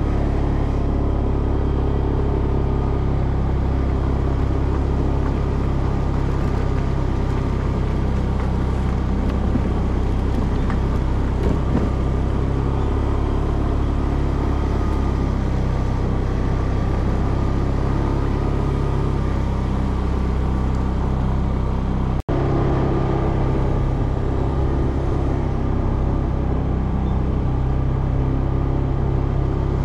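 A vehicle's engine running steadily with road noise, heard from on board. The sound cuts out for an instant about three quarters of the way through.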